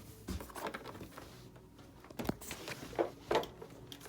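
A few scattered clicks and knocks with some rustling, the loudest a little past two seconds in and twice around three seconds in.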